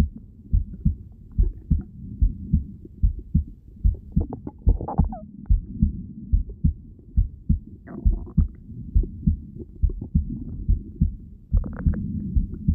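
Heartbeat heard through a stethoscope: regular low thumps, a few each second, with a couple of brief higher sounds about five and eight seconds in.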